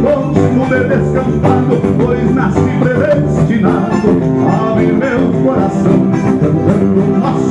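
Live traditional gaúcho folk music: a man singing over a band accompaniment.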